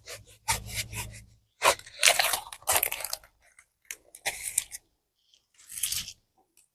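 Crinkly packaging from a diamond painting kit being handled, in a string of short, irregular rustles, with a brief low thud-like rumble about a second in.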